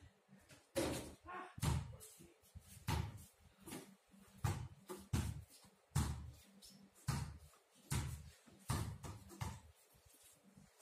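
Basketballs bouncing on a paved patio and banging against a wooden-plank backboard: a dozen or more uneven, separate thuds.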